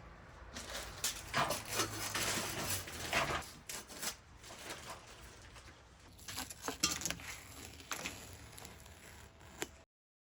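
Irregular clinks, scrapes and rustles of metal parts and tools being handled on a workbench, ending in an abrupt cut to silence near the end.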